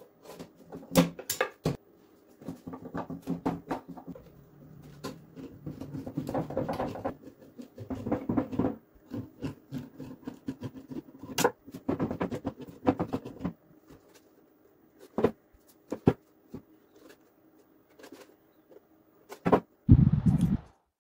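Hand screwdriver working the mounting screws of car speakers set in a wooden box: bouts of scraping and rasping as screws are turned, between sharp clicks of metal parts and tools being handled. A loud low thump near the end.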